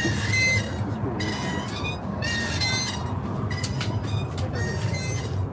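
Haunted-house sound-effects track playing over loudspeakers: a steady low rumble with high, squealing tones that keep coming and going.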